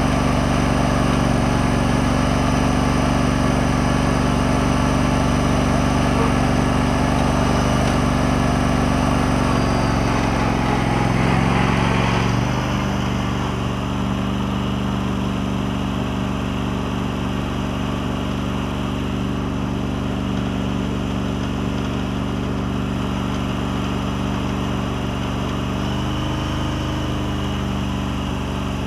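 John Deere LX188 lawn tractor's Kawasaki engine running steadily as the tractor moves. Its note rises briefly a little before halfway, then drops suddenly to a slightly quieter steady run for the rest of the time.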